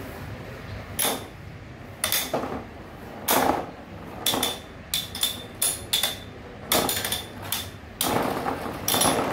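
Two Infinity Nado spinning tops with metal rims battling in a plastic bowl stadium, clacking sharply as they collide, about a dozen times at irregular intervals and closer together in the second half. Many of the hits leave a brief high ring.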